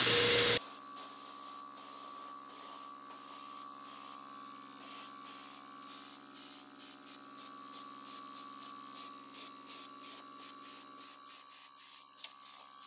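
Airbrush spraying thinned metallic silver paint with a hiss. After a short loud burst at the start it runs steadily, then from about halfway it comes in quick short bursts, two to three a second, as the trigger is pulsed. The compressor's steady hum runs underneath.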